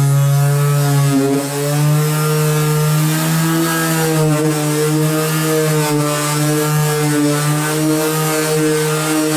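Cordless orbital sander running steadily while it sands the primer on a car bootlid. Its motor hums with a pitch that wavers slightly, with a brief dip about a second in.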